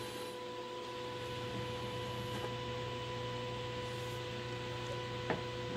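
Faint steady background hiss with a low electrical hum and a few steady tones, with a single faint click about five seconds in.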